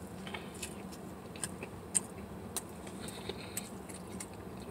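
A person chewing a bite of a bread bun close to the microphone, with small irregular mouth clicks, over a faint steady low hum.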